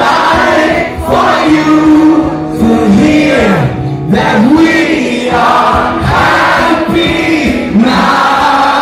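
Live band playing loudly while several voices sing a wordless, rising and falling melody together, choir-like.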